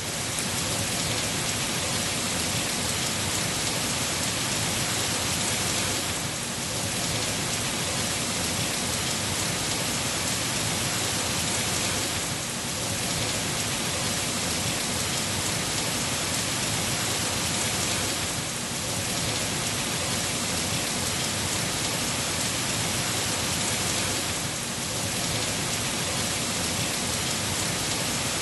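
Heavy rain pouring steadily onto leafy trees, a dense even hiss that eases slightly for a moment about every six seconds.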